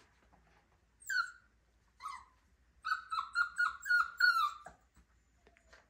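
Miniature schnauzer puppy whining: one short falling cry about a second in, another at about two seconds, then a quick run of short high whimpers for nearly two seconds.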